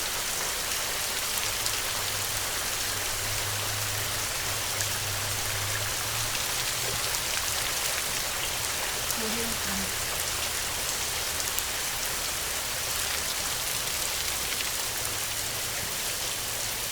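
Heavy rain falling steadily, with a low rumble of distant thunder swelling over the first few seconds and again near the end.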